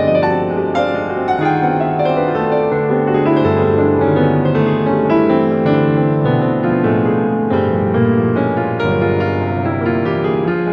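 Background music: a gentle piano piece played as a continuous stream of notes.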